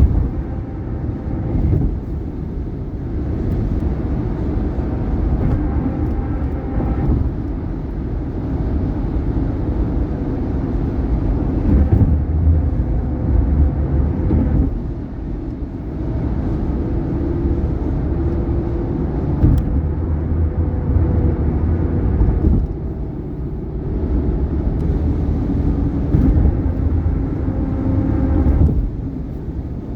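Steady tyre and road noise from a 2018 Subaru Outback driving at highway speed, with a few sharp thumps as the tyres cross bridge expansion joints and the road sound shifting as the surface changes.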